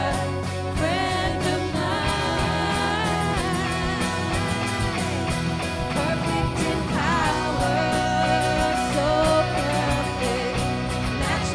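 A live worship band plays a rock song, with a woman singing lead over electric guitar, acoustic guitar and keyboard, to a steady beat.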